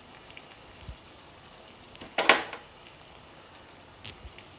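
Minced chicken sizzling faintly in a pan on the stove. One short clatter about two seconds in, as the coriander is added.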